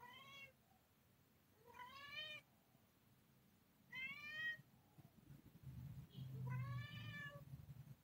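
Adult domestic cat meowing four times, each call rising and then falling in pitch, with the last one the longest. A low rumble comes in under the final call.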